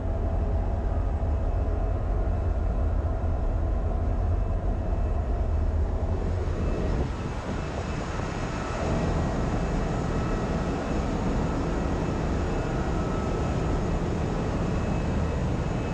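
Steady ship's engine-room machinery noise: a low drone with a few steady whining tones above it, fuller and brighter from about eight seconds in.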